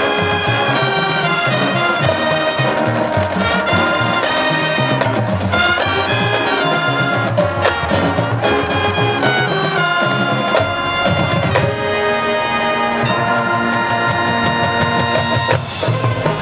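High school marching band playing, a brass section carrying held chords and the melody over a lower pulsing beat.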